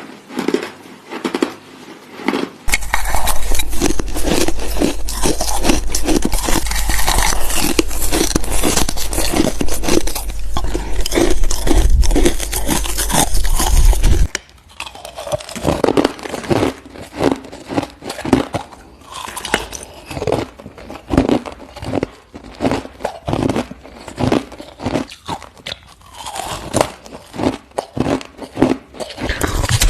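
Crushed ice being chewed close to the microphone, crunching. From about three seconds in, there is a loud, dense stretch of nonstop crunching that stops abruptly at about fourteen seconds. After that, the chewing goes on as separate crunches.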